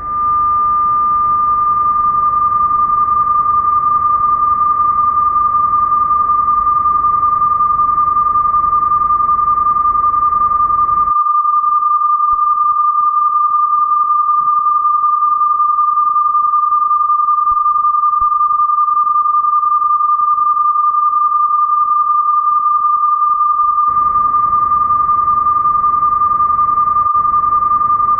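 Television sign-off test tone: a single steady high-pitched tone that comes in abruptly and holds unchanged alongside colour bars, marking the station off the air. A faint hiss runs beneath it and drops away for a stretch in the middle.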